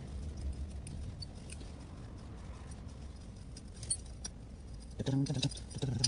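Small metallic clicks and scrapes as bolts and the end piece are worked out of a Yamaha SR400's muffler silencer by gloved hands, over a low rumble. A brief low sound stands out about five seconds in.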